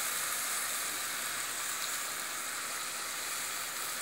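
Onion, chilli powder and tamarind-juice masala sizzling steadily in a hot pan as it fries.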